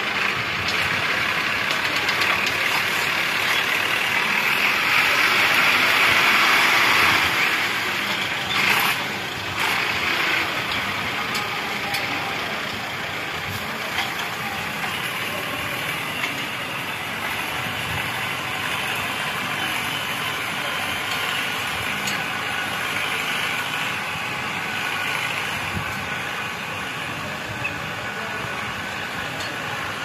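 Universal 640 DTC tractor's four-cylinder diesel engine working under load as it pulls a two-furrow reversible plough. It is loudest a few seconds in and fades slowly as the tractor moves away. A short knock comes about nine seconds in.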